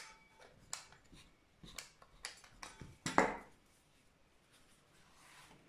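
Light clicks and taps of a pizza-cutter wheel and hands working floured dough on a silicone baking mat, with a louder knock about three seconds in; the tapping stops about halfway through.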